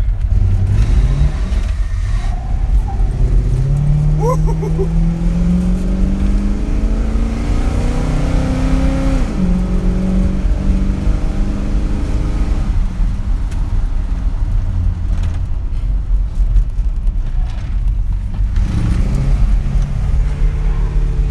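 1974 Dodge Monaco's V8 engine heard from inside the cabin under hard acceleration: the engine note climbs steadily for several seconds, drops sharply at an upshift about nine seconds in, then settles into a lower cruising rumble.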